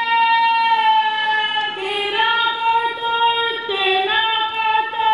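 A woman's voice singing long, held high notes, shifting to a new note about two seconds in and again near four seconds.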